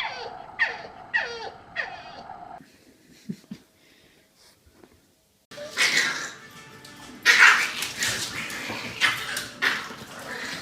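A dog yelping in short falling cries, about two a second. After a quiet gap, a louder, rougher stretch with sharp strokes follows.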